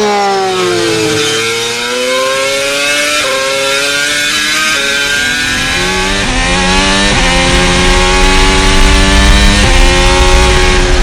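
Honda Formula One racing engine at high revs: its pitch falls over the first second or so, then jumps in steps every second or two as it changes gear, with a heavier low rumble joining about halfway through.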